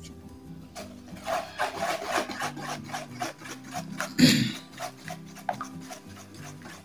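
Wooden stirring stick scraping and rubbing against a plastic basin while it stirs a thick soapy shower-gel mixture, in quick repeated strokes, with one louder scrape about four seconds in.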